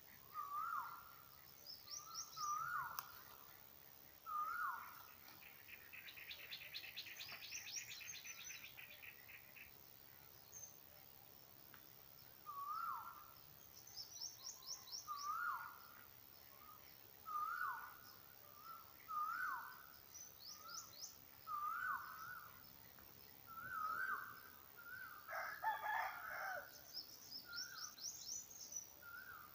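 Several birds calling in the open: one bird repeats a short hooked call every second or two throughout, others add brief high trills, and a long rapid trill runs for a few seconds early on. Near the end a rooster crows once.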